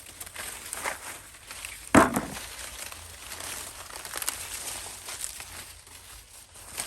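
Dry corn plants rustling and crackling as ears of corn are picked, with one loud sharp crunch about two seconds in.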